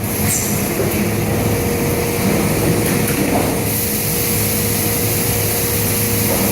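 Automatic pressure-vacuum forming machine running: a steady mechanical hum with a constant tone over it. A little over halfway through, a hiss of air grows louder.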